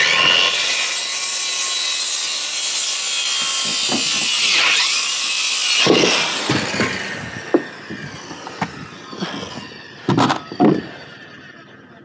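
Corded circular saw cutting through a wooden board, the motor's whine and the blade rasping through the wood for about six seconds before it stops. After that comes a scatter of separate knocks and thumps.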